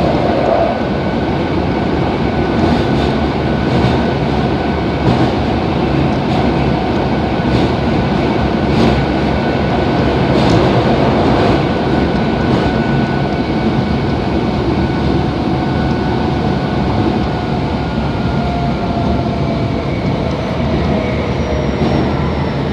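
Kobe Municipal Subway 3000 series car with a Hitachi GTO-thyristor inverter, running in the tunnel, heard from inside the car: a steady rumble of wheels on rail with scattered clicks from rail joints and a faint steady whine. Over the last few seconds thin whining tones slowly fall in pitch. The uploader finds this car's inverter sound above about 40 km/h unusual compared with the rest of the class.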